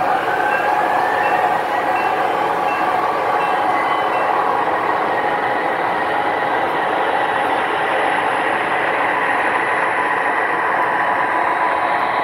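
O-scale three-rail model diesel freight train rolling past: a steady rumble of wheels on the rails, with a whine that rises slightly in pitch in the first second or so.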